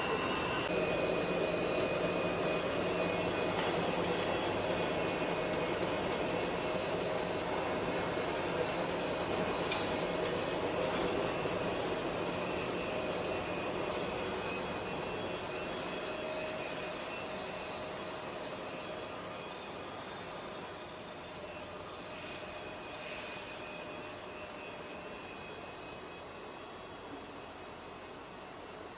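Machine tool working a corrugating roller, running with a steady high whine over a rushing noise. It starts about a second in; near the end the whine drops in pitch and the machine stops.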